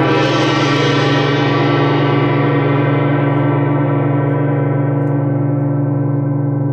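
A single gong stroke, then a long, loud ring with many overtones, the higher ones slowly dying away.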